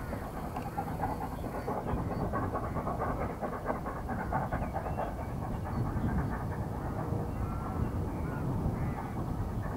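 LMS Royal Scot class three-cylinder steam locomotive No. 6100 'Royal Scot' working a train in the distance, its exhaust and running carrying steadily across the valley. Birds call now and then over it.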